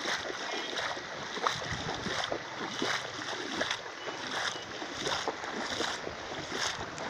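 Floodwater splashing and sloshing in a steady, irregular run of many small splashes.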